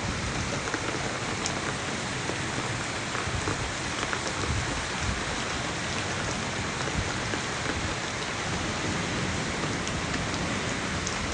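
Heavy wind-driven rain pouring down steadily, with water gushing off a roof, making an even rushing hiss with faint scattered drop ticks.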